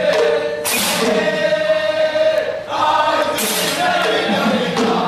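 Manipuri devotional chanting: men's voices singing together in long held notes over drum strokes, with two bright crashes about a second in and again past three seconds.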